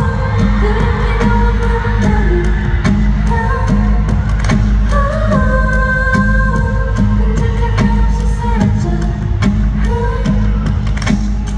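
A K-pop girl group singing a pop song live over a backing track with a steady beat, heard through the arena's sound system from among the audience.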